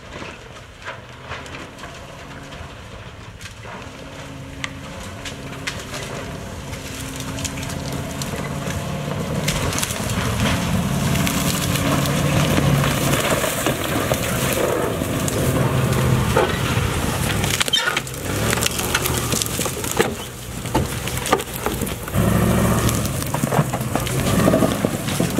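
Armored Chevrolet Suburban driving on flat run-flat tires over rocks and through brush, its engine running under a dense crackle of branches and brush cracking and snapping beneath it. The sound grows louder over the first ten seconds or so as the truck comes close.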